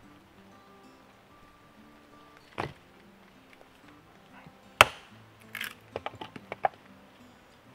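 A hatchet strikes a short log on a stump chopping block and splits it, one sharp crack about five seconds in, followed by a quick clatter of smaller knocks as the split pieces fall. A duller single knock comes a couple of seconds before the strike.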